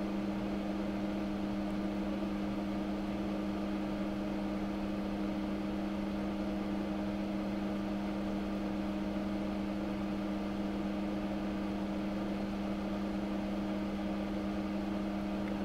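Steady electric hum of running workbench equipment: a constant low tone with a higher overtone over a light hiss, unchanging throughout.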